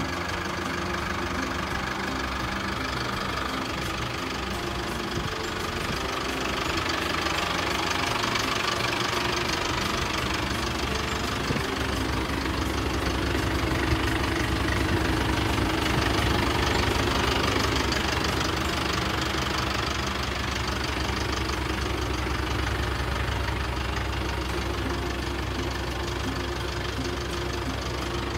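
Mazda Titan truck engine idling steadily, a little louder past the middle.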